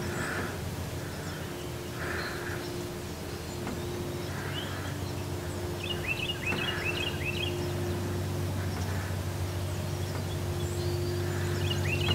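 Rural outdoor ambience: a songbird sings a quick run of falling chirps about six seconds in and again near the end, over a low rumble that swells in the second half.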